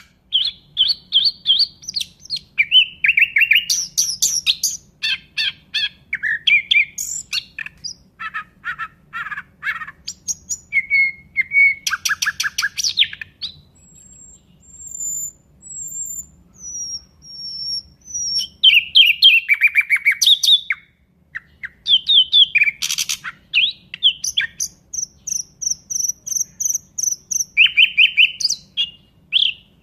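Nightingale singing a varied song: rapid runs of repeated notes, trills and whistled phrases. Midway there is a quieter stretch of thin, high, drawn-out whistles, and then the louder phrases resume.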